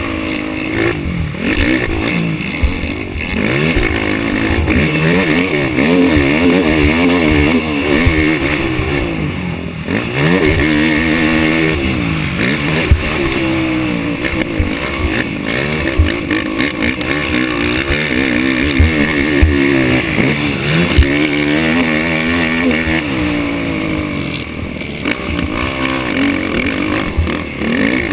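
Racing ATV engine under hard riding, its pitch rising and falling again and again as the rider accelerates and backs off, with wind rush and low knocks over the rough track.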